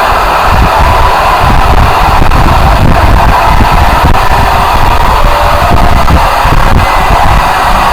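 Extremely loud, heavily distorted noise pushed almost to full scale, a dense steady roar with a churning, pulsing low end and no clear pitch or rhythm: a deliberately overdriven 'loud noise' meme edit.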